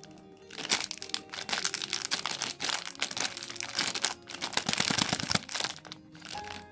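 Plastic candy wrapper crinkling and rustling as it is handled and opened: dense, crackly handling noise that stops shortly before the end.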